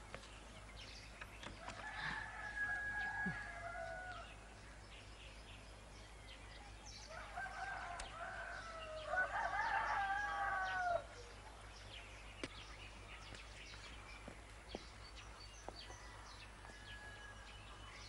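A rooster crowing: once about two seconds in, and again, longer, from about seven to eleven seconds in, each call ending in a falling note.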